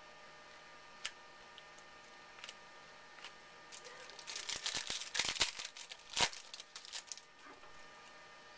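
Baseball card pack wrapper being torn open and crinkled by hand: a single click about a second in, then a few seconds of crackling and rustling with two sharper rips around the middle.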